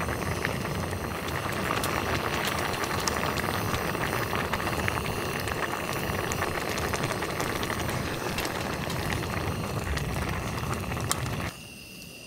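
Heavy rain falling steadily, an even rush dotted with many sharp drop ticks. It drops away suddenly near the end to a much quieter background.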